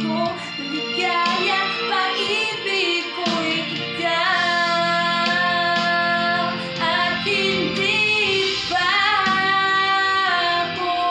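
A young man singing a Tagalog love ballad solo over a recorded instrumental accompaniment, holding long notes with a wavering vibrato through the middle and again near the end, where he strains for a high note.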